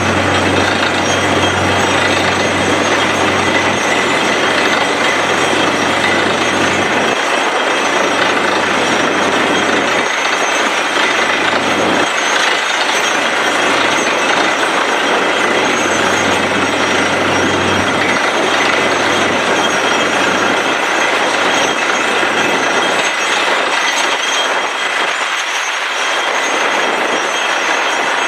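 Truck-mounted borewell drilling rig drilling with compressed air: a loud, steady rush as air and water blow the cuttings up and out of the hole, over the rig's running machinery, with a low engine hum that fades in and out.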